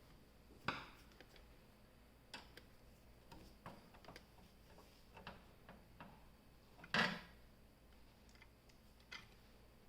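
Faint, irregular small clicks and taps of a screwdriver fastening the graphics card's bracket screws to a computer case, with a sharper knock about a second in and a louder one about seven seconds in.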